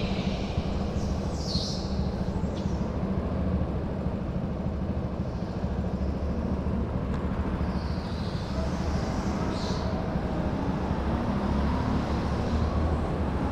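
Go-kart driving at speed on an indoor concrete track: a steady drive rumble from the kart, with a few short, high tyre squeals.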